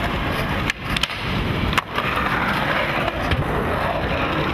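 Skateboard wheels rolling over rough concrete: a steady, gritty rolling noise, broken by a couple of brief drop-outs.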